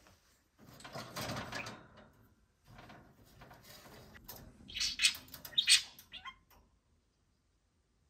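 Rustling and handling noises at a wire budgie cage, then a few sharp, loud budgerigar squawks about five to six seconds in.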